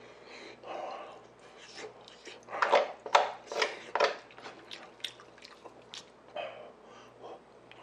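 Close-miked chewing and mouth smacking on a mouthful of fried rice. The chewing is loudest in a cluster a few seconds in, with short clicks of a spoon scooping rice from the metal pan.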